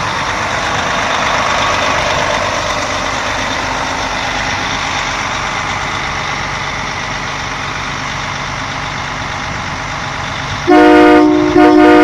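Fire engine idling with a steady hum, then near the end two loud horn blasts, each under a second, sounding as a chord of several steady tones with a brief gap between them.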